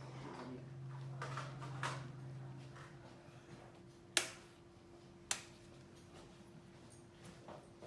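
Sharp clicks of the welder's power being plugged in and switched on. The two loudest come about four and five seconds in, with a few softer clicks before them, over a faint steady hum that stops about three seconds in.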